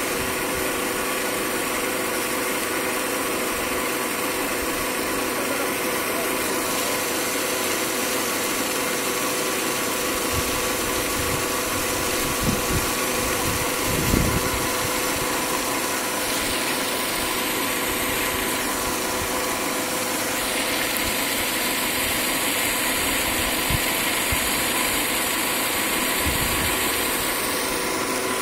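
Steady machine hum of a pond aerator running, over a hiss of spraying water, with a few light knocks about halfway through.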